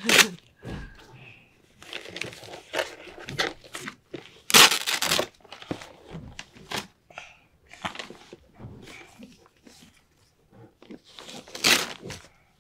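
Wrapping paper crinkling and tearing as a present is unwrapped, coming in fits and starts, with the loudest rips about four and a half seconds in and again near the end.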